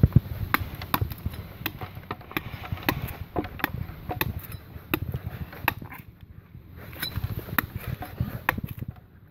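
Knife blade chopping and hacking into a tree trunk's bark in a quick, uneven run of sharp knocks, with a short lull about six seconds in.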